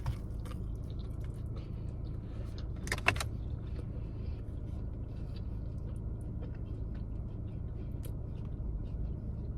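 Biting into and chewing a soft grilled chicken sandwich: faint wet mouth clicks throughout, with a sharper bite sound about three seconds in, over a steady low hum.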